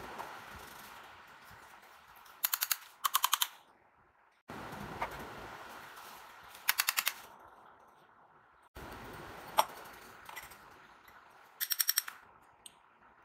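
Short runs of rapid, evenly spaced clicks, four runs in all, each under half a second. They sit over a hiss that starts suddenly three times and fades away each time.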